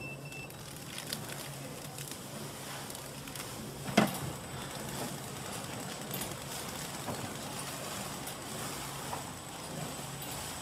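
Steady low hum of a flow wrap packaging machine, with scattered light clicks. A short beep sounds from the control panel at the very start, and one sharp knock comes about four seconds in.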